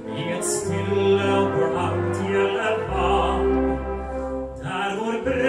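Live orchestra accompanying a male singer in a song, with held notes over a moving bass line. A new phrase begins near the end.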